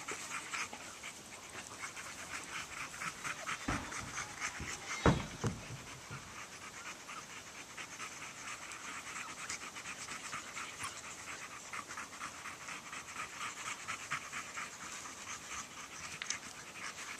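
A puppy panting fast and rhythmically, hot after running. Two thumps come about four and five seconds in, the second the loudest sound.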